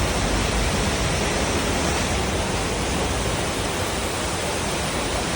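Steady rushing of a large volume of water pouring into a simulated flooded subway station, a continuous loud wash with no breaks.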